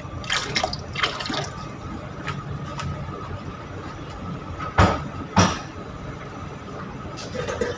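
Melted butter being added by the tablespoon to a bowl of yeast mixture, with faint liquid splashing and a few sharp clinks or knocks, the two loudest about half a second apart near the middle.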